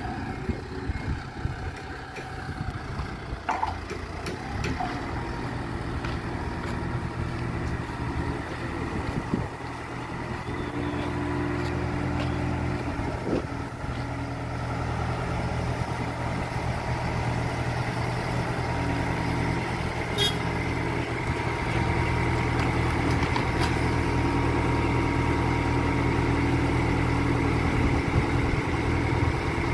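Engine of a boat travel lift running steadily, growing gradually louder, with a sharp click about two-thirds of the way through.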